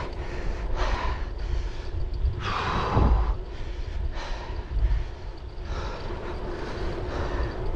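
Wind buffeting the microphone over a low rumble of tyres on the road while riding a bicycle, with louder gusts about one second and three seconds in.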